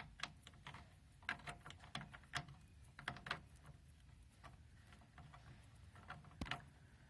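Scattered light clicks and taps of car parts being handled while a brake master cylinder is worked onto its pedal shafts, with one sharper knock about six and a half seconds in.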